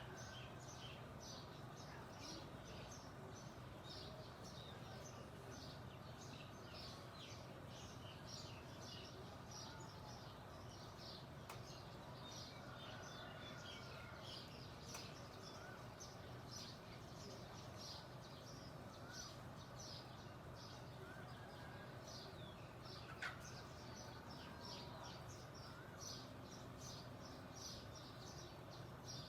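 Many small birds chirping at once in a dense chorus of short, high, rapid chirps, over a faint steady low hum. One brief louder sound stands out about three-quarters of the way through.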